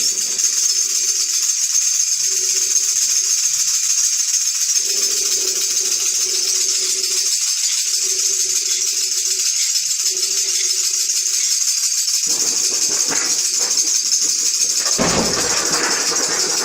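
Improvised rainstorm sound effect: a steady rattling hiss of shaken tambourines stands in for rain, while a hollow tone from blown bottles, the wind, comes and goes five times. About fifteen seconds in there is a broad, deep crash, which fits the sheet of brass played as thunder.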